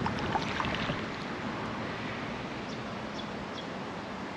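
Kayak being rowed: a few splashes and drips from the oars in the first second, then a steady hiss of wind and water.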